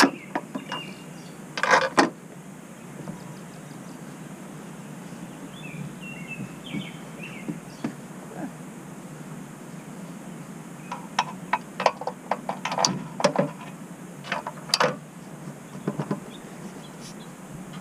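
Sharp clicks and knocks from hands working parts on the car's roof rail, one pair about two seconds in and a quick cluster from about eleven to sixteen seconds in, over steady outdoor background noise. A bird chirps briefly around six seconds in.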